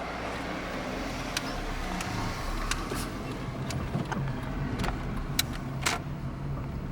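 Car engine and road noise heard from inside a moving car: a steady low hum with a haze of tyre noise. Several short, sharp clicks or rattles come through it.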